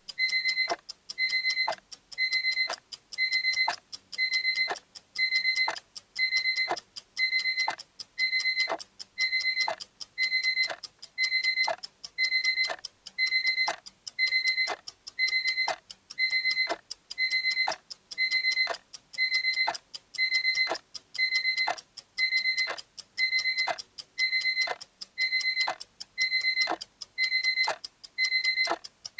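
Electronic alarm beeping over and over at an even pace, about one and a half high beeps a second, each followed by a quick downward sweep: the timer's time-up alarm.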